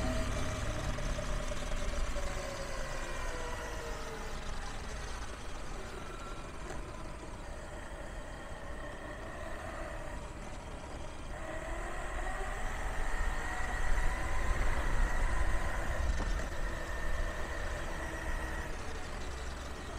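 Electric mountainboard's Trampa steel helical gear drive (7:1 reduction) whining over the rumble of its wheels on pavement. The whine falls in pitch over the first few seconds as the board slows, then rises again from about halfway as it speeds up, holds steady and cuts off shortly before the end.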